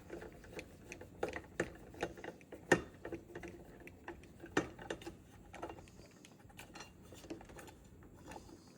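Screws being undone from the interior cover of a Schlage keypad deadbolt: irregular small metallic clicks and taps of the screwdriver and lock housing, with a sharper knock nearly three seconds in and another a couple of seconds later.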